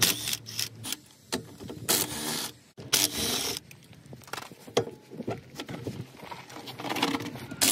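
Tools working on a car's rear suspension: several short loud bursts, about half a second each, between lighter clinks and scrapes of metal.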